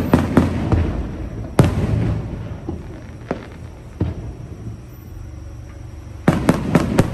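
Aerial fireworks shells bursting: a few sharp bangs at the start, single bangs about one and a half, three and four seconds in, and a quick cluster of bangs near the end, each trailing off in a rumble.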